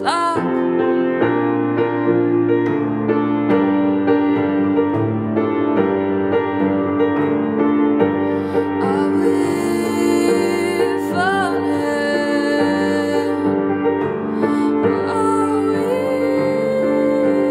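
Grand piano playing a slow instrumental passage: sustained chords with a melody moving over them.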